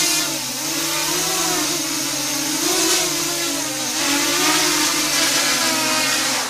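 OFM Swift TR260 tilt-rotor racing quadcopter's brushless motors and propellers buzzing in flight, the pitch wavering up and down with the throttle, then dropping away at the very end as it comes down to land.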